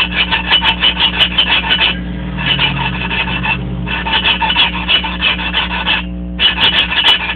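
Exhaust valve of a Briggs & Stratton 5 hp Raptor engine being lapped into its seat: the lapping tool worked rapidly back and forth grinds the valve against the seat through lapping compound, a gritty rasping that comes in runs of one to two seconds with three short pauses.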